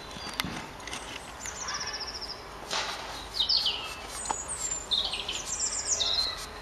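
Songbirds singing nearby: several short, high trills and quick down-slurred phrases, the loudest about halfway through and again near the end, with a few soft clicks in between.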